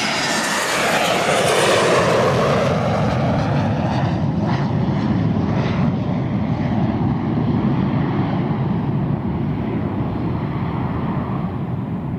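Airplane engine noise: a falling sweep in the first couple of seconds, then a steady drone whose high end slowly fades.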